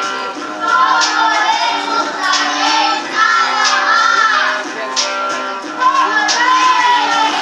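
A song with children's singing voices over accompaniment, with a steady beat about every second and a bit.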